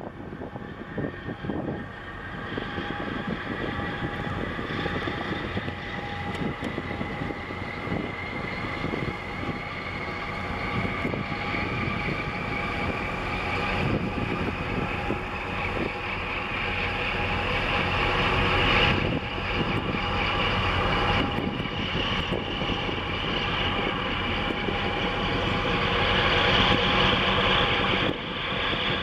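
Container ship's engine and machinery running as the hull passes close by: a steady mechanical drone with several held tones, one of them rising slowly in pitch. It grows gradually louder.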